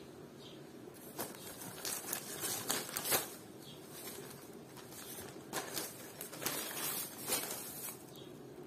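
Plastic wrapping around a pack of banana leaves crinkling as it is handled, in two rustling spells of several crackles each.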